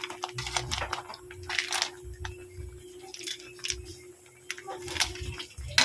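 Metal spoon stirring horn snails and clams in a cooking pot, the shells clacking and scraping against each other and the pot in irregular clicks.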